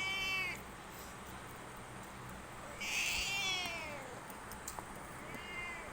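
Domestic cat meowing three times, each call falling in pitch. The middle call, about three seconds in, is the longest and loudest. It is begging for food.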